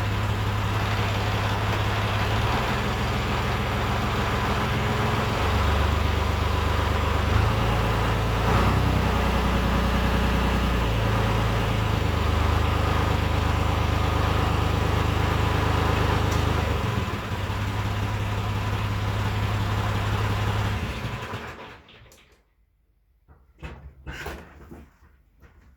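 John Deere 1950 tractor engine running, its speed stepping up and down several times, as when checking a rear PTO clatter that the owner thinks goes away with a little throttle. The engine stops about 21 seconds in, followed by a few faint knocks.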